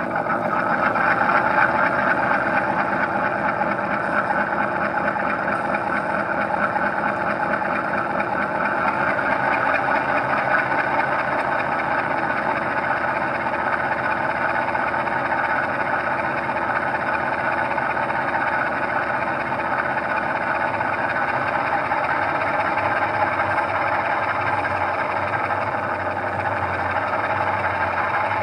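Large-scale 3D-printed model Class 34GE diesel locomotive running steadily under load, held in place as it pulls against a drawbar force gauge in a dyno test. A low hum grows slightly stronger over the last few seconds.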